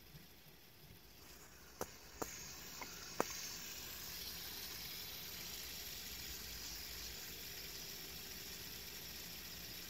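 A fidget spinner flicked with a finger, giving four sharp clicks over about a second and a half, then spinning on its bearing with a steady whirring hiss.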